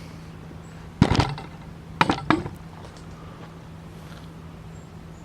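Hard objects being handled: a sharp clunk about a second in, then two more clunks in quick succession around two seconds in, over a steady low hum.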